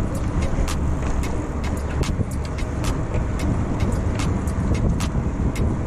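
Motorcycle underway: a steady low rumble from the engine and the ride, with many short sharp clicks scattered through it.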